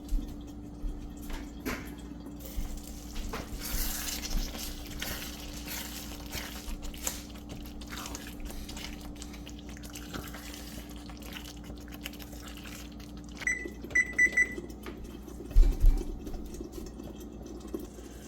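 Thick chicken vindaloo gravy bubbling gently in the pot on very low heat, with small scattered pops as the oil separates, over a steady hum. About thirteen seconds in the hum stops and a few short electronic beeps sound, followed by a couple of knocks.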